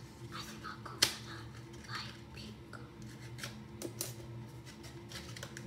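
Snap hair clips and their cardboard card being handled: light paper rustling and small clicks, with one sharp click about a second in and another near the end.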